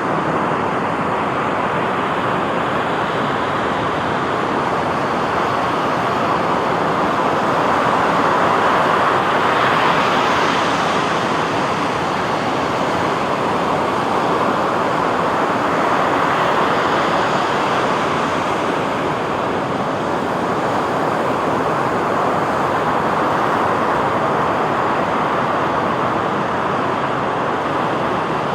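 Sea surf washing onto a beach: a continuous rushing wash that swells and ebbs slowly, peaking about a third of the way in.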